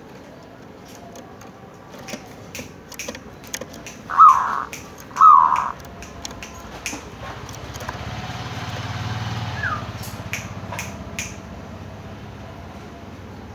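Zebra dove (perkutut) giving two short falling call notes about a second apart, among scattered light clicks. A low engine rumble swells and fades in the second half.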